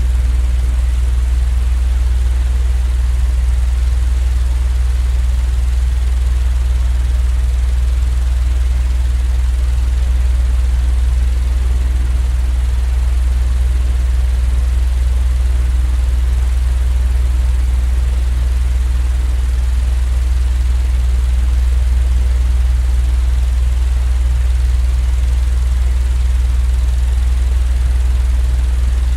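Steady, unchanging low rumble from a white-noise sleep track, heaviest in the deep bass with a faint hiss above.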